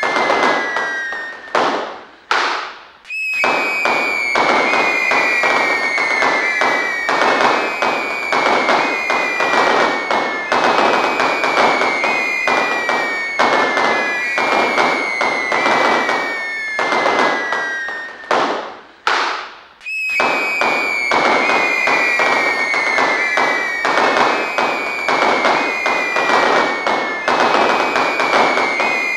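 Fireworks going off: dense, continuous crackling overlaid with whistles that each slide down in pitch, a new whistle starting every second or so. The crackle briefly drops away twice, about two seconds in and again about two-thirds of the way through.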